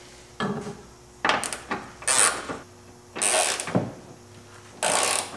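The rear trailing arm of a BMW E36, hub attached, clanking and scraping against its mounts as it is lifted and fitted into place: about half a dozen short, separate metal-on-metal knocks and scrapes.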